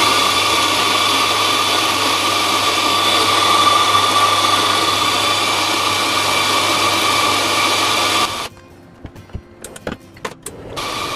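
Electric coffee grinder grinding espresso beans, running steadily for about eight seconds and then cutting off abruptly. A few knocks and clicks follow, then a quieter steady machine sound starts near the end.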